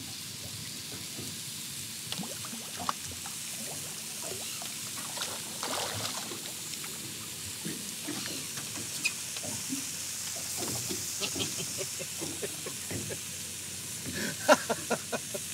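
Food frying in a pan: a steady sizzle with small crackles and pops scattered through it.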